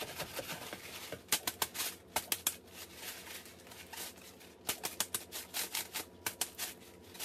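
Small raw crabs clattering against one another and against a plastic colander as it is shaken and the crabs are patted dry with a paper towel: rapid, irregular clicking in clusters.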